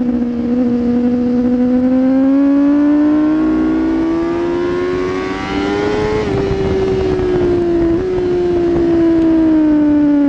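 2016 Kawasaki ZX10R inline-four engine under way at track speed, heard from on the bike. The engine note climbs steadily for about six seconds as the bike accelerates, then falls away, with a quick jump up in pitch about eight seconds in like a downshift. Wind noise rushes underneath.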